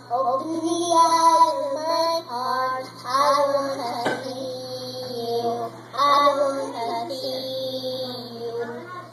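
A young boy singing into a microphone, played back through computer speakers, with two copies of the same recording playing at once slightly out of step. A steady low hum runs underneath.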